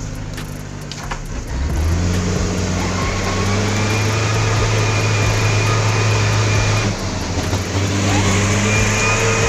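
Mitsubishi Canter truck's diesel engine labouring under load: a steady drone that swells about two seconds in, drops briefly around seven seconds, then picks up again.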